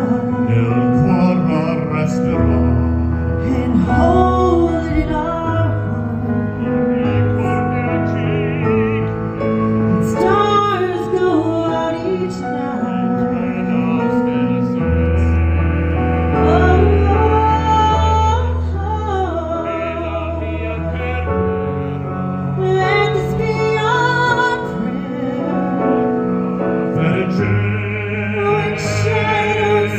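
A man and a woman singing a slow duet into microphones over live instrumental accompaniment, with long-held notes and sustained low bass tones underneath.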